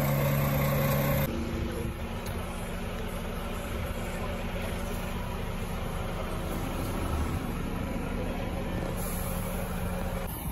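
Renault tractor unit's diesel engine idling steadily. About a second in, the sound changes abruptly to a duller, steadier hum as heard from inside the cab.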